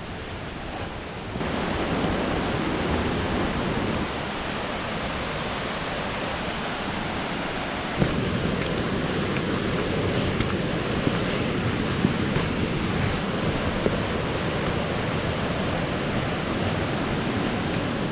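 A steady, loud rushing noise with a few faint knocks. It steps in level a few times, about a second and a half in, at about four seconds and at about eight seconds.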